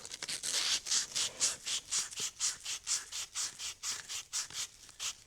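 Rapid back-and-forth rubbing strokes of hand deburring on the top of a valve stem, about four strokes a second, stopping just before the end.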